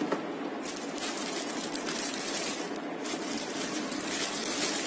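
Clear plastic wrapping crinkling and rustling as a Bluetooth speaker is unwrapped by hand, in bursts that start about half a second in, over a steady low hum.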